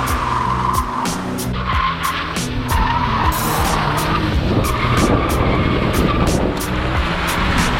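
Nissan 240SX drifting: its rear tires squeal in long, wavering stretches over the engine running under load. Background music with a steady beat plays along.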